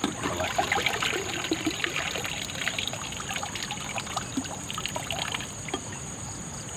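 Water trickling and pouring out of bamboo-tube and tin-can prawn traps as they are lifted from the river and tipped, with many small scattered clicks and knocks.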